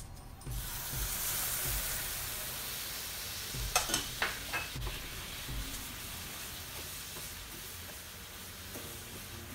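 Water poured onto sugar in a hot non-stick pan, hissing and sizzling from about half a second in and slowly dying down as the sugar syrup bubbles. A few sharp clicks come in the middle, and a spatula stirs the bubbling syrup near the end.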